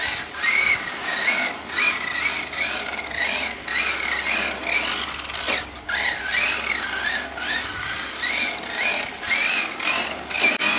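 Electric RC short course truck running, its motor and drivetrain whining in a pitch that rises and falls over and over as the throttle is worked.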